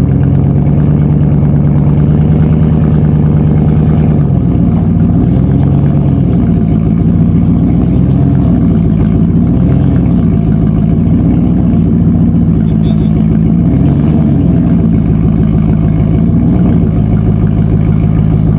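Engine and aftermarket exhaust of a 2013 Dodge Ram 1500 pickup running at a steady speed for about four seconds, then rising and falling in revs again and again as the truck is driven.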